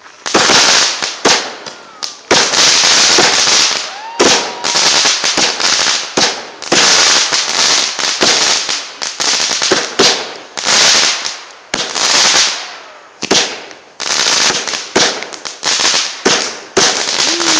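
Consumer fireworks going off in quick succession: sharp bangs, each followed by a hissing, crackling trail, about one a second, with a brief whistle about four seconds in.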